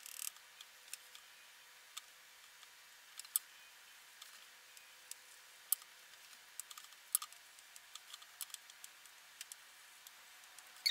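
Light, irregular clicks and taps of drawing tools being used and handled on a tabletop, over a faint steady hiss.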